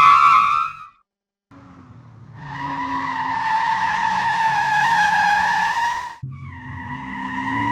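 Car tyres screeching in a hard skid, three separate screeches: one ending just under a second in, a second that builds from about two seconds and cuts off sharply around six seconds, and a third starting right after it.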